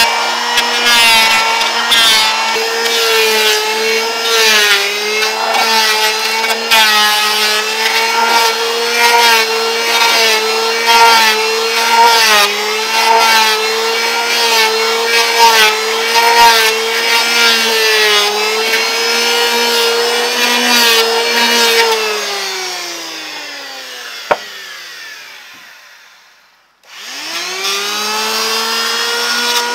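Electric hand planer running and shaving a wooden board, a steady motor whine over the rasp of the blades cutting wood. About 22 seconds in it is switched off and the motor winds down with a falling pitch, then it starts again and spins back up near the end.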